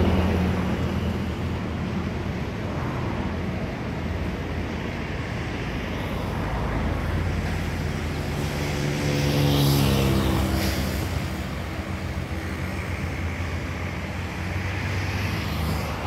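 Road traffic with a steady low hum. Around nine to eleven seconds in, a vehicle drives close past, and its engine pitch falls as it goes by.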